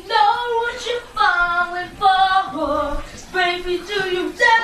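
A high-pitched human voice in a string of drawn-out, wavering notes, about seven in a row with short breaks between them, sung or wailed.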